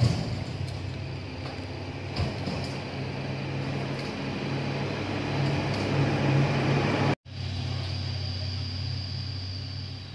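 Vehicle engine running steadily with road traffic noise that swells, then drops out for an instant about seven seconds in before the engine hum carries on.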